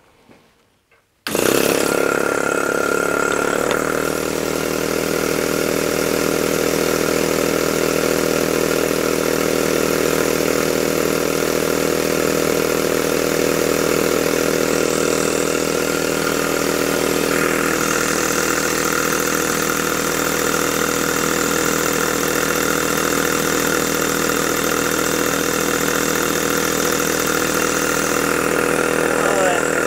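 Jowitt poppet-valve model steam engine, running on compressed air, starts suddenly about a second in and then runs fast and steady.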